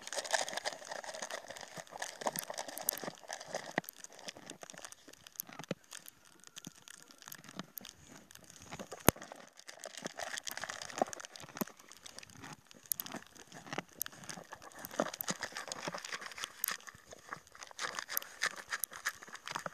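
Horse eating from a hand-held plastic bowl: irregular crunching and rustling of its muzzle and teeth in the feed and against the plastic, with many small clicks and one sharper knock about nine seconds in.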